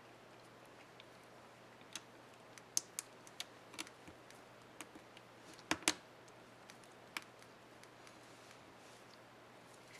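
Irregular small plastic clicks and snaps from a laptop key's cap and retainer clips being handled and pressed into place on an HP Stream 11 keyboard, with a louder double snap in the middle.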